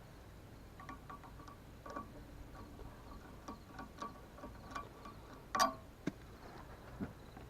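Scattered light clicks and taps of a new kill switch being handled and taken apart, with one sharper, louder click about five and a half seconds in.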